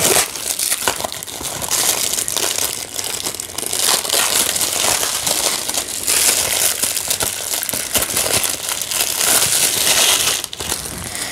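Plastic shrink-wrap crinkling and crackling as it is picked at and peeled off a Blu-ray case, without a break. The crackling is loudest about six seconds in and again near the end.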